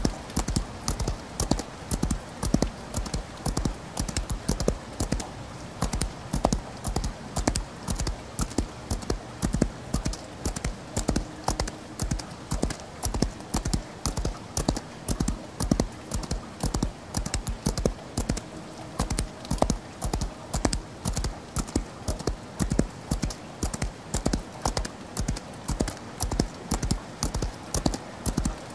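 A horse galloping, its hoofbeats falling in an even, repeating rhythm of grouped strikes, over a steady hiss of rain.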